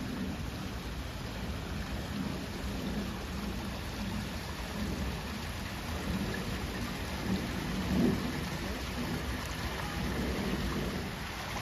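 Steady rain with a low, uneven rumble underneath, and a brief louder swell about eight seconds in.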